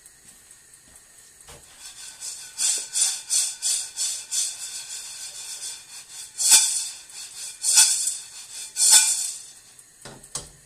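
Coffee beans partway through roasting, just starting to change colour, rattling and sliding in a frying pan as it is shaken. A run of quick swishes about three a second is followed by three louder tosses a little over a second apart.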